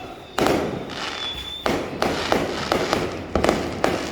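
Fireworks going off: a string of sharp, irregular bangs, sometimes only a third of a second apart, each trailing off briefly, with a short high whistle about a second in.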